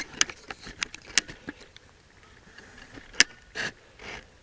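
Irregular sharp clicks and creaks of a squeaky shooting tripod being handled and adjusted, with the loudest click about three seconds in followed by brief scuffing.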